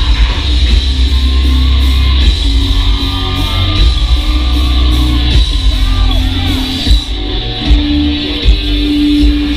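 Heavy metal band playing live: distorted guitars over a heavy low end. Several hard drum hits stand out in the last few seconds.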